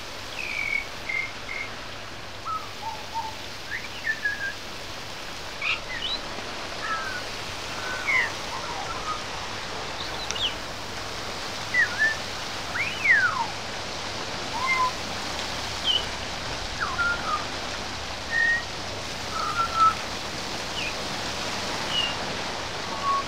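Pied butcherbird singing a string of short, clear whistled notes and slides, spaced out with gaps between phrases, over a steady hiss of rain.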